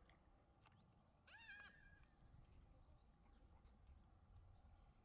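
Near silence: a faint low rumble, a few faint high chirps, and one short whining call that rises and falls about a second and a half in.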